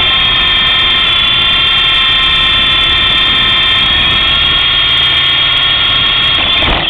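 Electric motors and rotors of a 9961 Cobra RC model helicopter, heard from its onboard camera, running in flight with one damaged rotor blade. They give a loud, steady whine of several pitched tones, and a sharp knock comes right at the end as it comes down.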